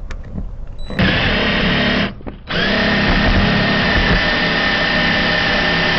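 Power drill boring into a Kwikset deadbolt lock to drill it out, running steadily with a high whine. It starts about a second in, stops briefly at about two seconds, then starts again and keeps running.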